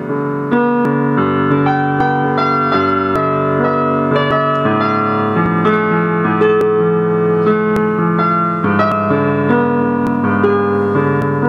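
Mellow piano music: a slow piece with notes struck one after another and left ringing, so they overlap.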